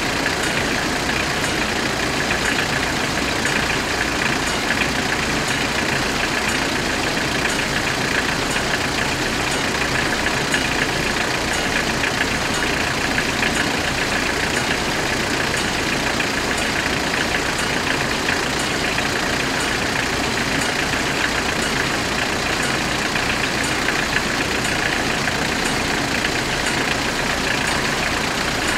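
Level crossing warning bells ringing continuously while the barriers are down, over the low running of idling vehicles waiting at the crossing.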